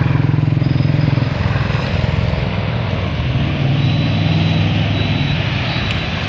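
Low, steady rumble of a motor vehicle engine running close by on a wet road, easing slightly after about a second.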